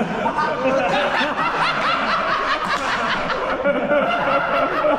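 Men laughing, with chuckles and snickers.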